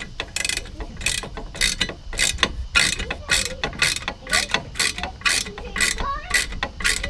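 Hand socket ratchet clicking in quick repeated strokes, about three a second, as a bolt is tightened.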